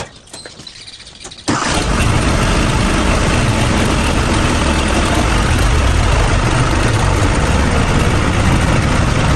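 Ford 3600 tractor engine catching about a second and a half in, then running steadily.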